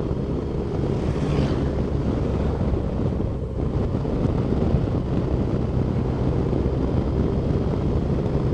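Touring motorcycle's engine running steadily at moderate road speed, heard through wind noise on the microphone as a steady low drone.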